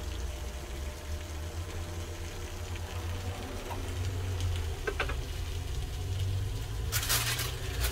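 Fish steaks sizzling on a hot home grill lined with parchment paper, over a steady low hum, with a few louder sharp noises near the end.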